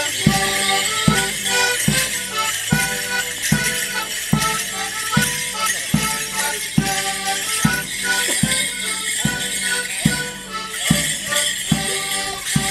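Morris dance band of fiddle, accordion and drum playing a lively dance tune, the drum striking a steady beat a little faster than once a second. The dancers' leg bells jingle in time with the music.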